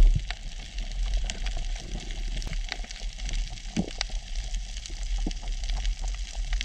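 Underwater ambience over a coral reef: a steady low rumble with scattered sharp clicks and crackles throughout.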